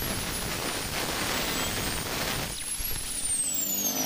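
Handheld angle grinder cutting metal on a motorcycle frame, a steady grinding noise with a high whine over it. Near the end the grinder comes off the work and its whine falls steadily as the disc spins down.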